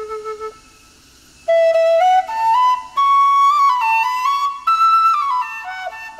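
Balinese suling (bamboo flute) playing a slow melody. A low held note breaks off half a second in, and after about a second's pause the notes step upward one by one, then come back down.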